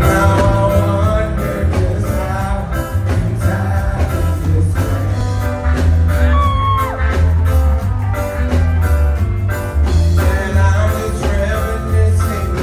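Live island reggae band playing through a concert PA, with a male lead singer and a heavy, pulsing bass line, heard from within the crowd.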